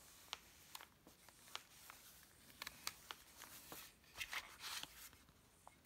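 Near silence, with a few faint clicks and soft scraping as a small encaustic painting iron slides over wax-coated card.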